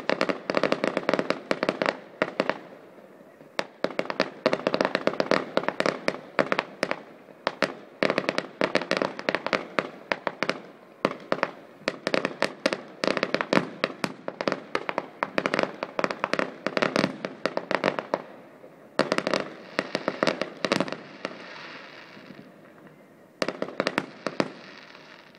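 Fireworks display: dense volleys of rapid crackling bangs in several long waves, with a few short lulls between them.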